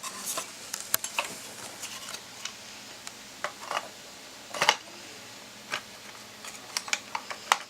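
Irregular light clicks and taps of computer parts being handled and fitted, with a sharper knock about halfway through.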